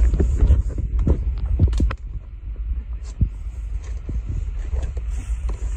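Low rumble of wind and handling on a phone microphone, with scattered knocks and scuffs of hikers clambering over rocks, densest in the first two seconds.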